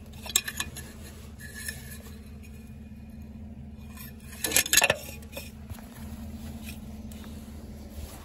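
Metal scraping and clinking of a dipstick being worked in and out of its metal fill tube on a tractor, a few light clicks early and the loudest scrape-and-knock cluster about halfway through, over a steady low hum.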